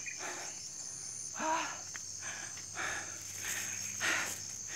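A steady high-pitched drone of insects, with short puffs of heavy breathing about once a second from someone climbing a steep muddy slope.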